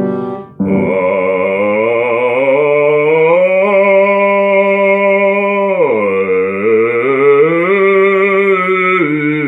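Operatic bass voice singing long sustained notes in its low register. The pitch dips and climbs back up about six seconds in, after a short first note and a brief break.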